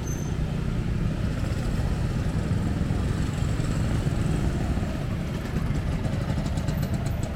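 Street traffic: motorcycle and car engines running in a steady low rumble.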